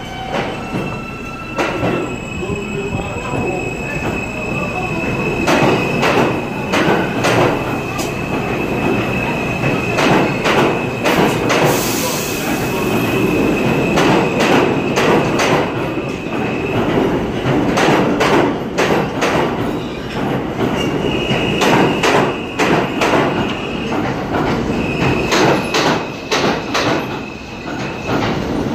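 New York City subway train of R160 cars moving along the platform track. Its wheels give a long, high squeal that holds for over fifteen seconds, then shorter squeals near the end. All of this is over a loud rumble and rapid clacking of wheels over rail joints.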